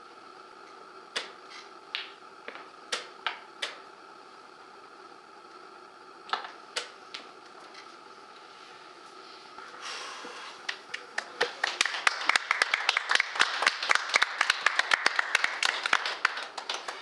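A few sharp clicks of chess pieces set down and a chess clock pressed in the last moves of a game. About ten seconds in, a small group starts applauding the finished game, and the applause fades near the end.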